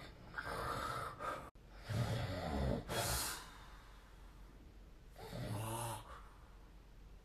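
A sleeping person snoring: a breathy inhale, then a rough, low snore about two seconds in that ends in a short sharp hissing breath out, and a second snore about three seconds later.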